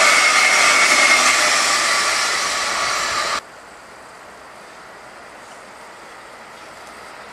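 Electric-hauled regional train of double-deck coaches running close past: a loud rolling rush with a steady high whine, slowly fading. It cuts off suddenly about three and a half seconds in, leaving only a faint steady background.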